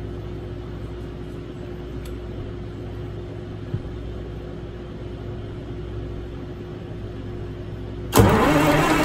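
A steady low hum, then about eight seconds in a Detroit Diesel 6-71 two-stroke inline-six is suddenly cranked over, loud, on its starter.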